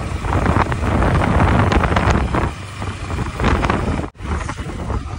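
Wind buffeting the microphone while riding a sport motorcycle, with the engine and road rumble running underneath. The sound cuts out for a moment a little after four seconds in.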